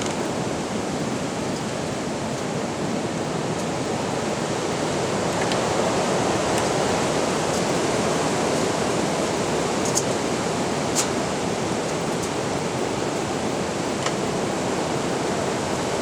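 Strong wind blowing as a steady rush that swells slightly partway through, with a few brief sharp clicks in the last third.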